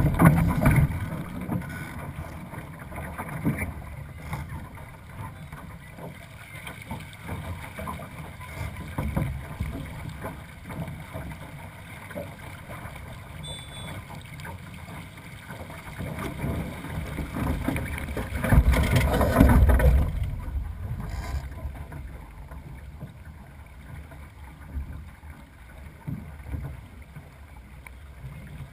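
Wind buffeting the microphone over water rushing and slapping along a sailing dinghy's hull, with louder surges about a second in and again around two-thirds of the way through.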